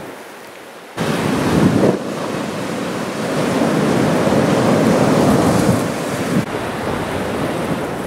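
Strong Santa Ana offshore wind buffeting the microphone over the rush of breaking shorebreak surf. The noise is quieter for the first second, then jumps suddenly louder and stays loud and gusty.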